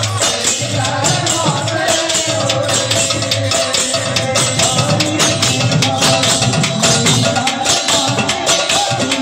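Live kirtan folk music: a two-headed barrel drum beaten in a fast, steady rhythm with jingling metal percussion over it and a held melody line.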